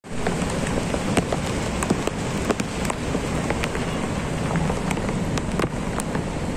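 Heavy rain falling, with many irregular sharp ticks of drops striking close by, over a steady low rushing noise.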